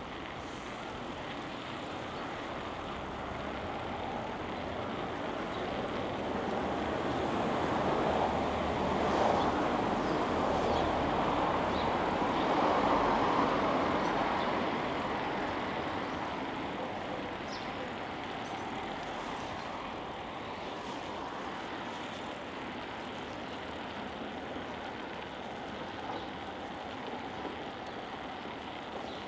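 Steady outdoor traffic noise heard from a moving bicycle, with a passing vehicle swelling past and fading away in the middle.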